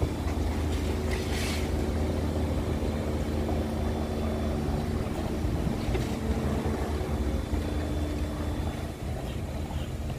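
Steady low hum of running car-wash machinery, with a short hiss about a second and a half in.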